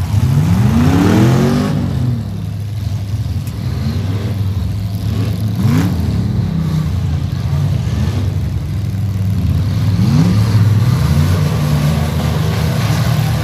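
Demolition derby trucks' engines running under load, with revs that rise and fall in pitch: a long rev about a second in, and shorter revs near the middle and later on.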